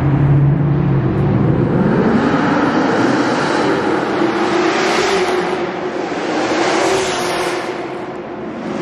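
Chevrolet Camaro engines accelerating on the road; the exhaust note rises about two seconds in and then holds high. Cars pass close by with louder swells around five and seven seconds in.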